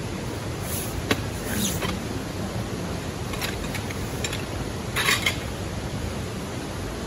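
A fabric stuff sack being handled and unrolled on a ground sheet: a few short rustles and clicks, the loudest cluster about five seconds in, over a steady rushing background noise.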